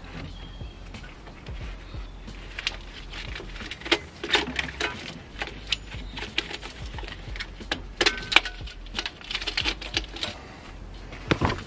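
Irregular sharp metallic clinks and knocks, coming in clusters, as the cylinder head of a Vauxhall Astra's 1.6 petrol engine is wrestled loose and lifted off the engine block.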